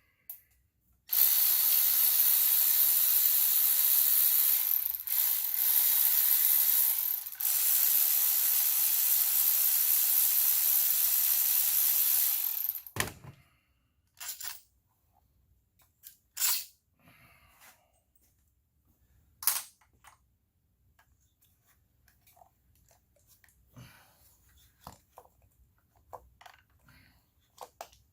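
Long, loud, steady hiss of a pressurized spray, lasting about eleven seconds with two brief breaks, then cutting off. A few light tool clicks and knocks follow.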